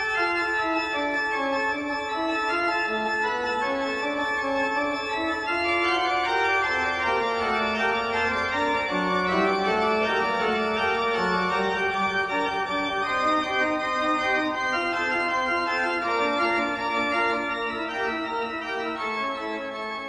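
Background organ music: slow, held chords with a melody moving note by note, easing down near the end.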